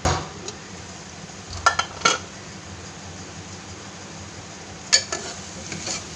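An aluminium pressure cooker clanking as its lid is handled and taken off, with a few sharp metal knocks. A spoon then scrapes and stirs the spiced sprouts in the pot near the end.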